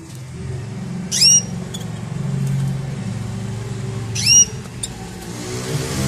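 Two sharp chirps from a caged finch, about three seconds apart, over a steady low hum.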